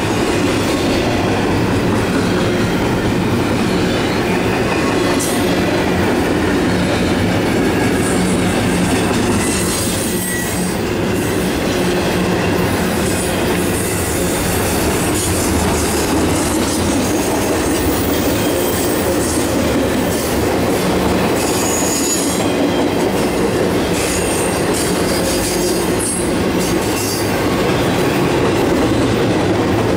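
Double-stack container cars and trailer-carrying flatcars of a CSX intermodal freight train rolling past: a steady rumble and clatter of steel wheels on the rails, with short high wheel squeals now and then.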